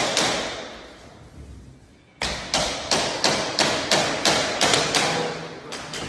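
Quick series of sharp knocks on laminate floor planks, about three a second. They fade away in the first second or so, then a louder run starts suddenly about two seconds in.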